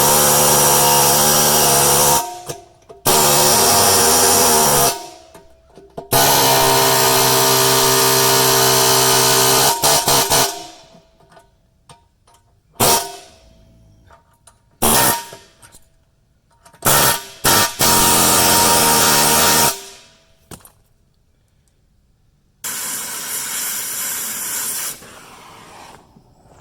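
A power tool run in repeated bursts on excavator bucket teeth: three long runs of two to four seconds each with a strong pitched whine, then several short bursts, and a quieter rougher run near the end.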